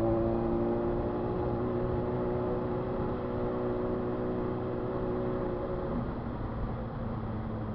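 Motorcycle engine running steadily, its pitch easing down a little before the tone fades about six seconds in.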